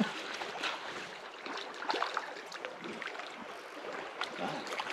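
River water running, with light trickling and small splashes.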